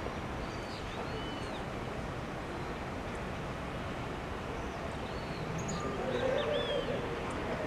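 Birds chirping in short arching calls over a steady haze of outdoor background noise; a lower, louder call joins about six seconds in.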